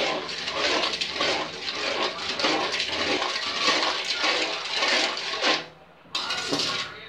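A spoon stirring sugar and water round a metal kadai while the sugar dissolves: sloshing liquid with a scrape of the spoon on the pan, in quick rhythmic strokes about two or three a second. The stirring stops for a moment near the end, then starts again.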